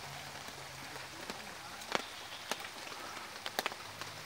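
A steady outdoor hiss with a few scattered sharp ticks and a faint low hum underneath.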